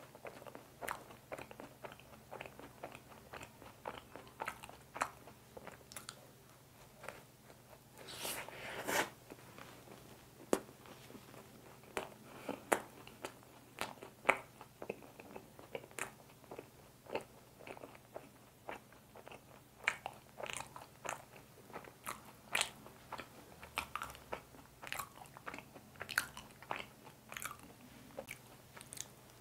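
Mouth chewing a soft, chewy fresh-cream mocha bun: irregular wet clicks and smacks, with one longer noisy sound about eight seconds in.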